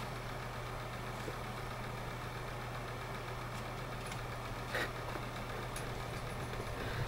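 Steady low hum, with one faint short tap nearly five seconds in.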